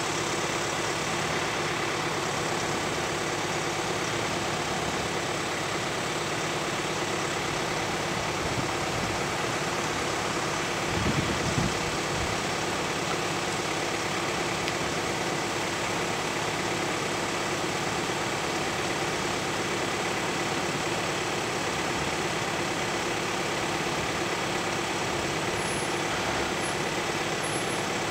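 VW Amarok's four-cylinder turbo-diesel idling steadily as the truck creeps nose-down over a steep drop, with a brief low thump about eleven seconds in.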